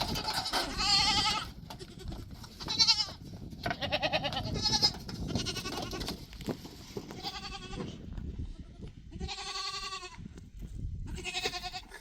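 A series of bleats, one every second or two, each with a quavering pitch.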